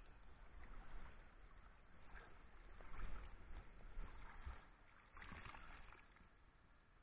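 Faint sloshing and trickling of water in a shallow rocky stream, swelling in uneven surges, over a low rumble on the microphone.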